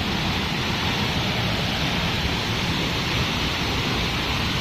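Waterfall: a steady, loud noise of water falling. She calls it very loud.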